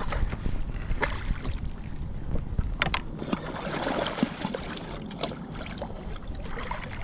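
Gusty wind rumbling on the microphone, with water washing and a few sharp clicks scattered through.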